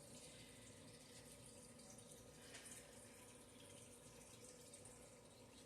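Near silence: faint room tone with a couple of soft ticks.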